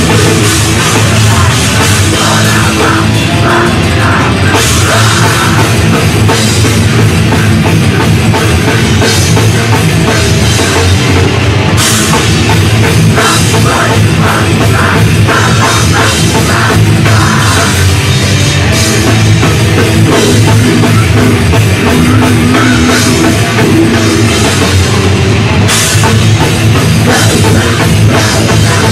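Heavy metal band playing live and loud: distorted electric guitars over bass and a drum kit with cymbals.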